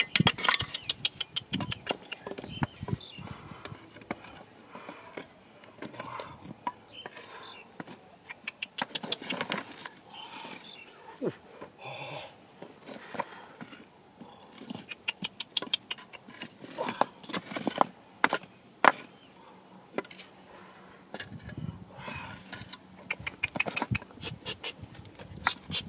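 Loose rocks knocking and scraping as a wooden stick and a shovel prod among the stones, with boots shifting on rubble. Irregular sharp knocks, some in quick rattling runs.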